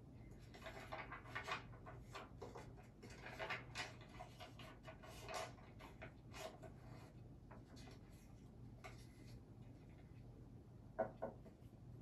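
Faint rustling and light clicks from small objects being handled, with one sharper click near the end, over a steady low hum.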